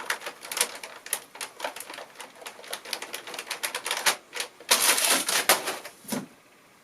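Rapid, irregular clicking, tapping and scuffing of household objects worked as fight-scene Foley effects, with a louder scraping rush about two-thirds of the way through before it stops.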